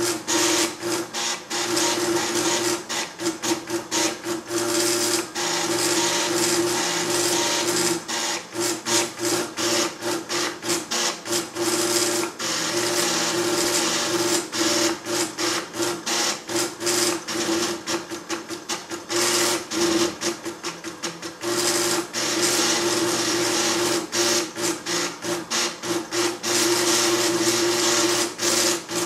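Calcomp 565 drum plotter drawing, its stepping motors making a steady buzz that is broken again and again by short pauses as the pen and drum move in short strokes.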